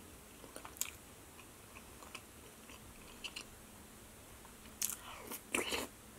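Close-miked eating sounds: faint mouth clicks and chewing, then near the end a louder cluster of slurps and mouth noises as a spoonful of pasta e fagioli soup is taken.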